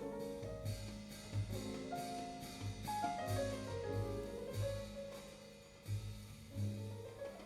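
A jazz trio recording playing through Sound Lab G9-7C electrostatic loudspeakers. Deep bass notes pulse along under a stepped melodic line, with repeated drum and cymbal strokes.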